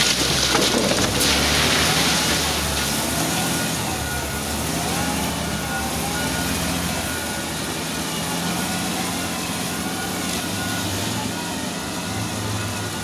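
Wheel loader's diesel engine running under load, a steady mechanical drone with pitch that shifts up and down. A loud rushing noise over the first two seconds or so fades into it.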